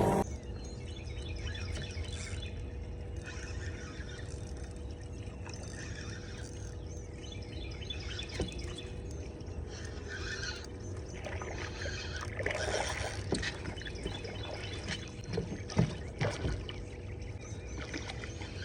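Water lapping and splashing against the hull of a drifting fishing boat, over a steady hum, with scattered light knocks and clicks, more of them in the second half.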